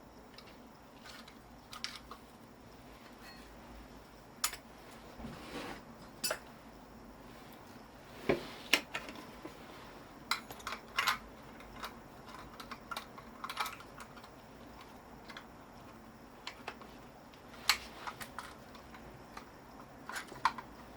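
Irregular light metallic clicks, taps and clinks of small metal parts and tools being handled while an electric motor is taken apart for its copper, a few louder knocks among them.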